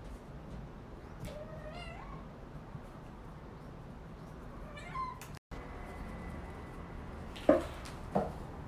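Kitten meowing twice, each call rising in pitch. After a brief cut, two short, sharp, louder sounds come near the end.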